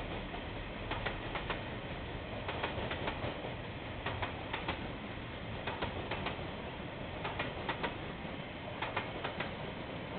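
KiwiRail train's wheels clicking over rail joints as the train rolls past, in groups of two or three clicks about every second and a half over a steady rumble.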